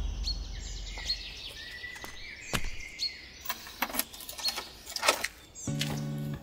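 Birds chirping in a repeating short call, with a few sharp clicks and knocks in the middle. Plucked guitar music starts near the end.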